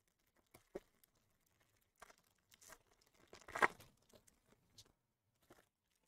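Silver foil trading-card pack wrapper torn open by hand and crinkled in short, faint rustles, with the loudest tear about three and a half seconds in.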